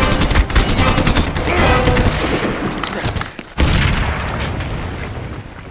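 Machine gun firing, its shots running together in a dense rapid stream; it breaks off briefly about three seconds in, then comes back with a loud burst that fades away.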